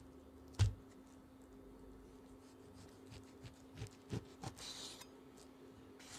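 A thud on a wooden cutting board about half a second in as a block of raw beef is handled, then a kitchen knife slicing through the raw beef: a few light knocks on the board and a short scraping hiss a little past the middle. A faint steady hum runs underneath.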